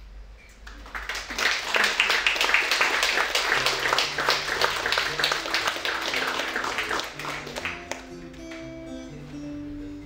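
An audience applauding for several seconds, starting about a second in and dying away near the end, while an acoustic guitar plays picked notes underneath and carries on alone.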